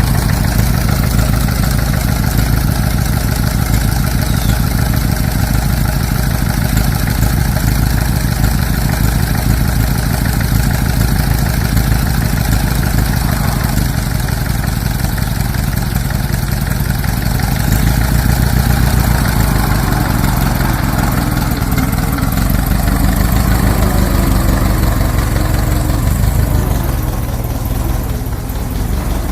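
Old car's engine running steadily, dipping slightly in loudness near the end.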